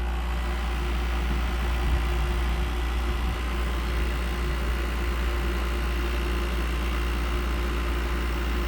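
A 2007 Frigidaire 5200 BTU window air conditioner running just after start-up. A steady low hum sits under the even rush of its fan blowing cold air.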